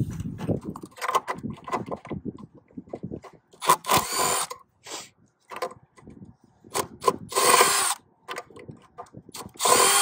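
Milwaukee cordless drill/driver running in three short bursts, about four seconds in, about seven and a half seconds in and near the end, backing screws out of a fan motor hub. Scattered clicks and knocks of handling come before the first burst.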